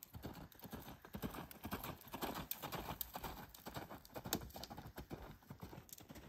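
Horse's hooves striking a gravel-sand arena at the canter: a steady run of muffled, crunching hoofbeats.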